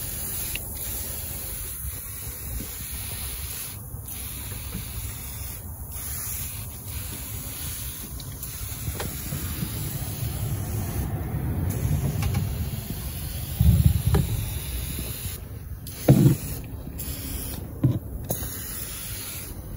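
Tire-foam cleaner sprayed from a can over the engine bay, a hissing spray in repeated bursts broken by short pauses. A few loud thumps stand out in the second half.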